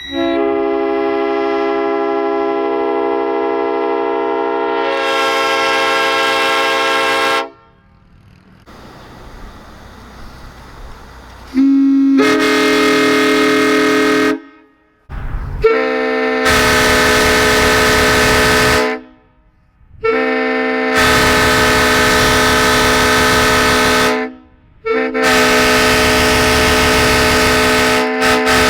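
Horns blowing in long held blasts, several steady tones sounding together as a chord. One long blast of about seven seconds, then after a short lull four more blasts of three to four seconds each with brief breaks between them.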